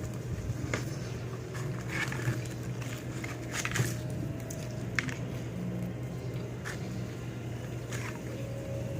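A person eating fried chicken: scattered short crunches and mouth clicks of chewing, over a steady low hum.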